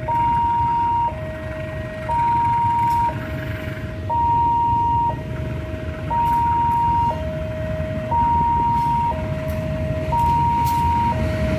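Level-crossing warning alarm sounding a steady two-tone hi-lo, about one second on each note, over the low rumble of a diesel locomotive approaching.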